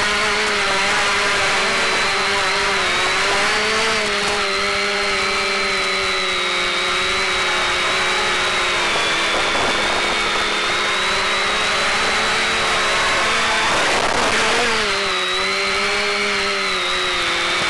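Quadcopter's brushless motors and propellers whining steadily, picked up onboard, the pitch wavering with throttle changes and dipping then climbing back about fourteen seconds in.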